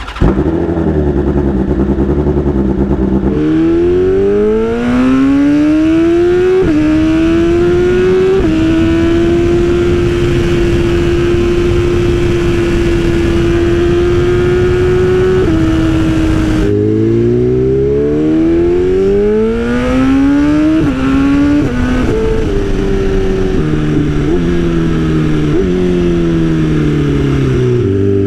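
2020 BMW S1000RR M Sport's inline-four engine through an Austin Racing aftermarket exhaust, running low and steady, then accelerating through two upshifts to a steady cruise. About 17 s in the throttle snaps shut. The engine pulls hard again, shifts up twice quickly, then winds down through stepped downshifts to a low steady note.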